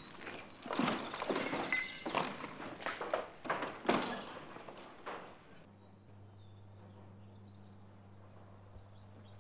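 Footsteps and rummaging on rubble and broken debris: irregular crunches, scrapes and knocks for about five and a half seconds. Then the sound cuts suddenly to a low steady hum with almost nothing else.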